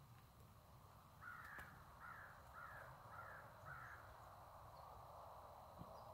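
Faint outdoor scene in which a bird calls five times in quick succession, about two calls a second, over a faint steady hiss.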